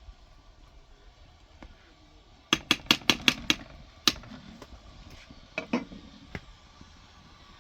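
A quick run of about six sharp knocks, then a single knock and a few fainter scattered ones.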